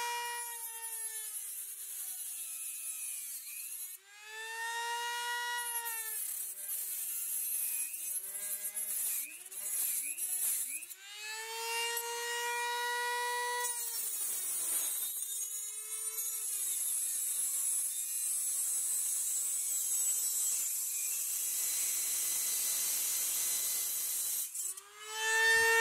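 Dremel rotary tool on high speed with a cut-off wheel, cutting aluminium tile edge trim. The motor's whine drops in pitch each time the wheel is pressed into the metal and climbs back as the pressure eases, over a steady hiss from the grinding.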